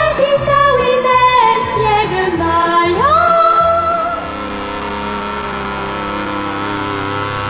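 A song with a singing voice over music for about four seconds, then a paramotor's two-stroke engine drone takes over, steady and unchanging in pitch.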